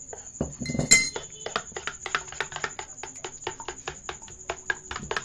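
A metal spoon beating a flour-and-egg batter in a ceramic bowl: quick clicks of the spoon against the bowl, several a second, with one louder ringing clink about a second in.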